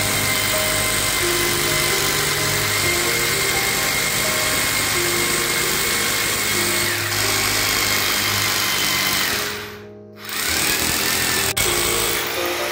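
Background music laid over an electric rotary hammer running as it drills into a concrete ceiling slab. Both break off briefly about ten seconds in.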